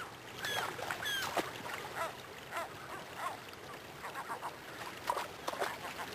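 Gulls calling repeatedly: short, falling cries, the first few more drawn out and later ones quicker, over the steady rush of river water.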